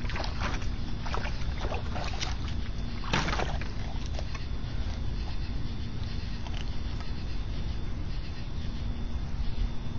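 Water splashing and sloshing in a plastic kiddie pool as a raccoon wades and moves about in it: a run of short splashes over the first few seconds, the loudest a little after three seconds in, then only faint water movement.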